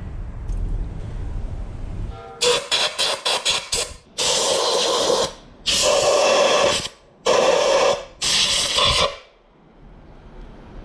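Compressed-air blow gun blowing out a plastic brake master cylinder reservoir: about six quick short puffs of air, then four longer blasts of about a second each, after a low rumble in the first two seconds.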